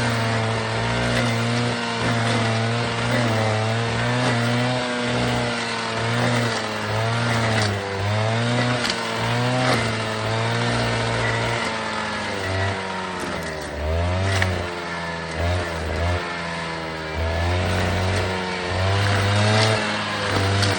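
Alpine Magnum stump grinder's engine running under load while its Greenteeth cutter wheel grinds a stump. The engine note wavers up and down as the teeth bite, settles lower from about halfway through, and a few sharp knocks come through.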